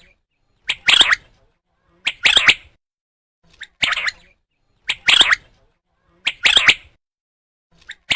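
A bird calling repeatedly: short, loud, rasping calls of two or three quick notes each, about every second and a half, five full calls in a row.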